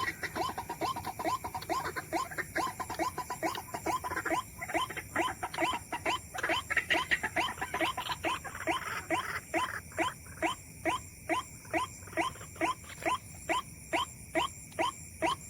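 White-breasted waterhen (ruak-ruak) calling: a long run of short, rising, squealing notes. The notes are dense and overlapping at first, then settle to about two a second over the last five seconds.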